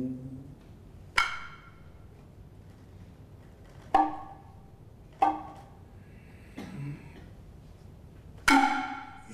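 Noh tsuzumi hand drum struck four times at slow, uneven intervals, each sharp crack ringing briefly.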